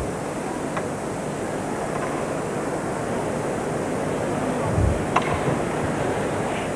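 Arena crowd noise, a steady wash of murmur from the spectators, with a low thud about five seconds in.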